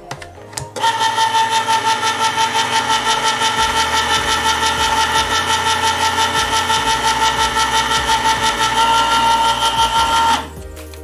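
Electric can opener running as it cuts around a can: a steady motor whine with a fast, even pulsing. It starts about a second in, after a couple of clicks, and cuts off shortly before the end.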